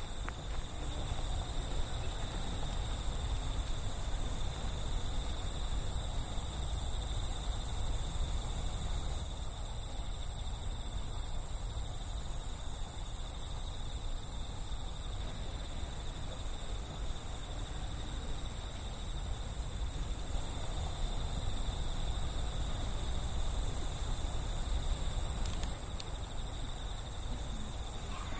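Night-time rural ambience: insects singing in a steady high drone that never breaks, over a constant low rumble.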